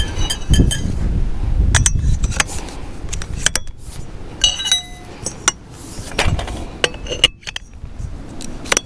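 Repeated light metallic clinks and knocks, some with a brief ringing, over a low rumble that is strongest in the first few seconds.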